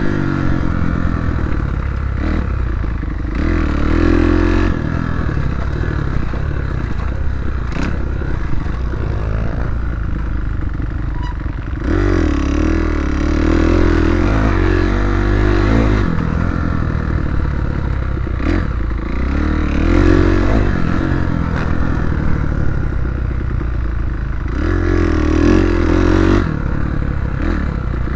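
Kawasaki KX250F motocross bike's four-stroke single-cylinder engine, heard from on the bike while it is ridden over a dirt track, revving up and dropping back several times as the throttle is worked through the run.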